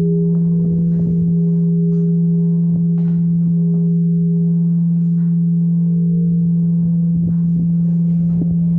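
Church bells ringing at close range in the bell tower: a deep, steady hum with higher overtones above it, and faint strikes now and then.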